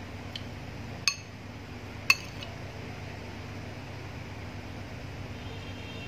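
Metal spoon clinking against a ceramic plate and bowl during a meal of rice and soup. One faint clink, then two sharp ringing clinks about a second apart, over a steady low hum.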